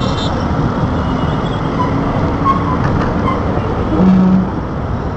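Steady city road traffic heard from a moving vehicle: a continuous rumble of engines and tyres, with a short low tone about four seconds in.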